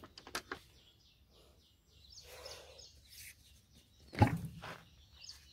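A plastic drip-irrigation filter housing being handled and opened, with a few sharp plastic clicks at the start and one loud knock about four seconds in.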